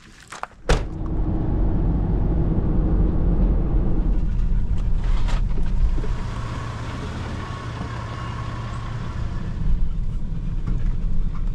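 SUV being driven, heard from inside the cabin: a steady low engine and road rumble. A few sharp clicks and a thump come just before the rumble begins, under a second in.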